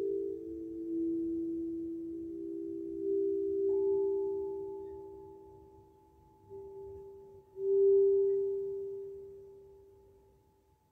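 Tuned metal sound bars struck in turn, each giving a pure, tuning-fork-like tone that rings on and slowly fades. Fresh strikes come about three seconds in, again at about six and a half seconds, and loudest at about eight seconds, and a higher tone joins at about four seconds.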